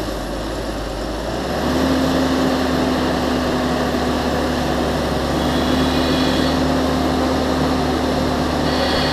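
Fendt Vario tractor's diesel engine working hard while pushing chopped maize on a silage clamp. About one and a half seconds in, the engine gets louder and settles into a steady, even note, with a faint high whine above it now and then.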